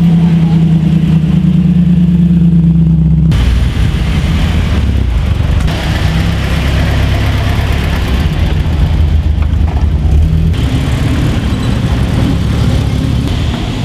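Classic car engines pulling slowly past one after another in short clips that cut sharply into each other. An MGB GT is heard at the start, an Alfa Romeo GTV coupé in the middle, and a Jaguar E-Type roadster near the end.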